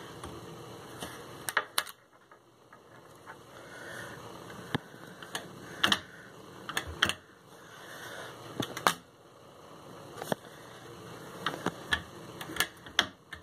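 Irregular clicks and light knocks, some in quick clusters, from plastic magnetic child-proof cabinet lock parts and a cabinet door being handled while the lock is fitted and tried with its magnetic key.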